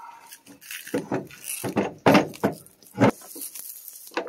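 Handling knocks and clunks of a spool of submersible pump cable being set down and shifted on a pickup's tailgate. They come as several separate knocks, the loudest about two and three seconds in.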